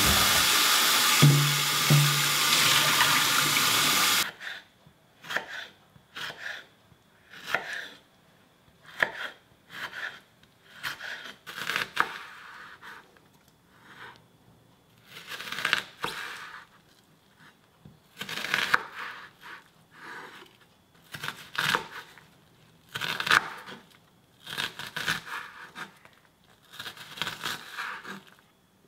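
Kitchen tap running into a stainless steel bowl of green tomatoes as they are rinsed, cutting off suddenly about four seconds in. Then a chef's knife slices and dices red onion on a wooden chopping board, in short runs of strokes with pauses between.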